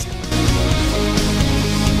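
Rock music with electric guitar, filling out and growing louder a moment in.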